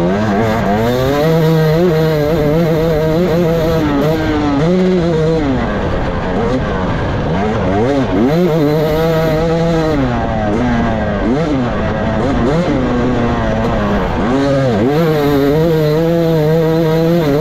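Off-road racing motorcycle engine heard from on board, revving up and dropping off over and over, with a few stretches of a second or two held at a steady high pitch.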